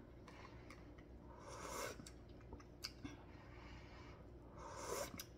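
Two soft slurping sips of hot chocolate from a spoon, each swelling briefly, with a few faint ticks between them.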